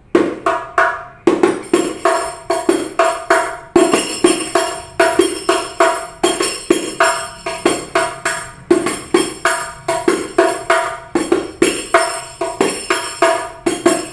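A 30 cm rebana hadroh frame drum played by hand in a steady rhythm of sharp strokes, each ringing briefly with the rattle of its small metal jingles. The skin head is new and still quite tight, giving a bright, high-pitched tone.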